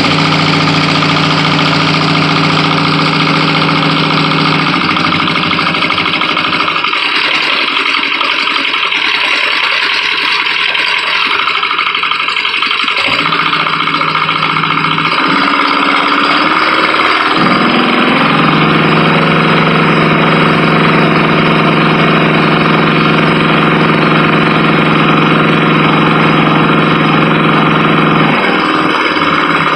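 Small two-cylinder Kubota diesel engine of a G4200 tractor running steadily, its speed changing a few times, with a rise in pitch about two-thirds of the way through.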